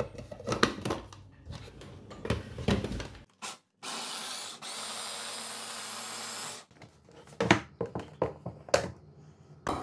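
Electric mini chopper puréeing cooked chestnuts. Plastic clicks and knocks as the bowl, lid and motor head are fitted together, then the motor runs steadily for about three seconds and stops, followed by more plastic knocks as the motor head is lifted off.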